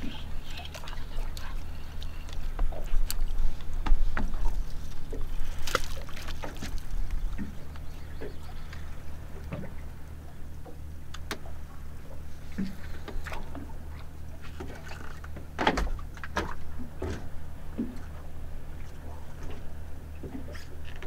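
Boat engine idling as a steady low hum, with water sloshing against the hull, louder in the first several seconds, and scattered knocks and clicks.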